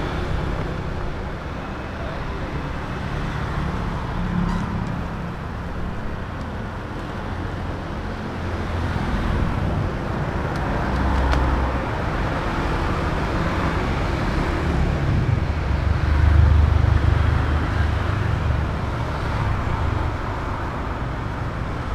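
Steady rumble of road traffic going by, engines and tyres, swelling to its loudest about three quarters of the way in.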